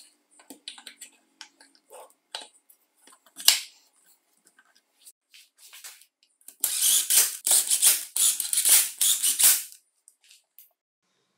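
Small clicks and taps of an aluminium drill's metal housing parts as the gearbox cover is fitted onto the motor body, with one sharp click about three and a half seconds in. Then a hand screwdriver drives the cover screws home: a dense, scratchy run of clicking lasting about three seconds.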